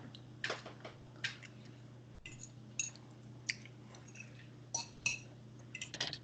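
Eating sounds: chewing and scattered light clicks and clinks of utensils or dishes, over a steady low hum.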